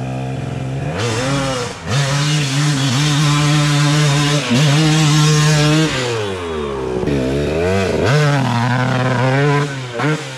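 A vehicle engine revving hard under load as it climbs. It revs up about a second in and holds a high, near-steady pitch with a brief dip. It falls off at about six seconds, revs up and down again, holds high, and eases near the end.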